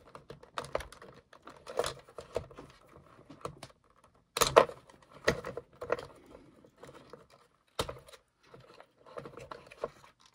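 Irregular clicks, taps and scrapes of hands working wires free from glued plastic clips and handling a turntable's plastic chassis and motor control board. The loudest is a sharp knock about four and a half seconds in.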